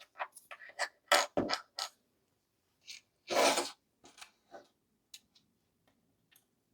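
Small plastic and metal headphone headband-adjuster parts being handled, with a run of light clicks and ticks and a short scrape about three and a half seconds in.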